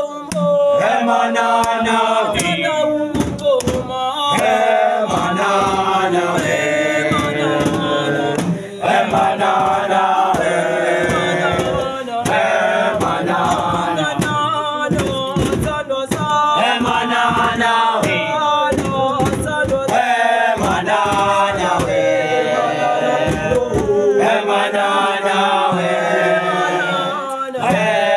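A group of boys and young men singing a chant-like song together, many voices at once.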